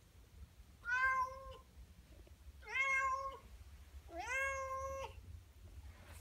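Norwegian forest cat meowing three times, each meow drawn out for about a second and the last the longest, crying to be let outside.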